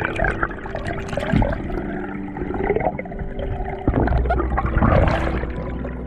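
Muffled underwater sound of water and bubbles gurgling past the submerged camera, with irregular short bubbly glides.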